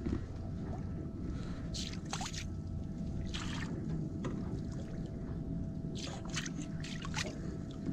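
Water splashing and trickling at the side of a boat as a hooked squid is lifted into a landing net, the squid squirting jets of water; several short splashes over a steady low rumble and a faint hum.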